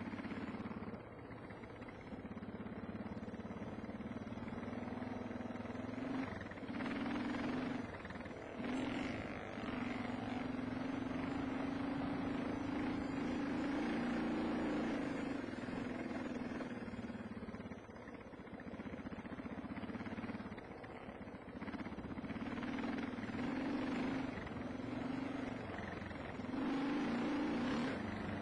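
Single-cylinder four-stroke dual-sport motorcycle engine running under load on a dirt trail, its note rising and falling with the throttle and dropping back briefly several times as the rider eases off, over steady wind noise.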